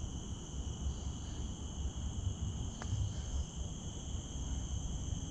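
Steady insect chorus in the forest, a continuous high drone at several pitches, over a low rumble.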